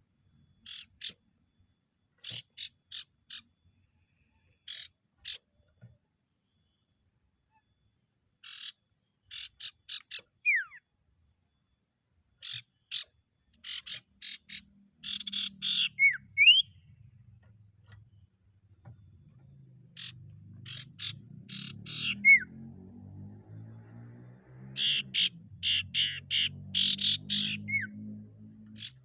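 A sirtu (cipoh, common iora) singing in groups of fast, sharp chirps, several times ending in a single clear whistle that slides down in pitch. A low hum runs underneath from about halfway through.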